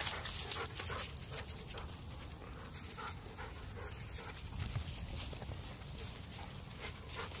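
A dog panting close by, with scattered rustling steps through fallen leaves.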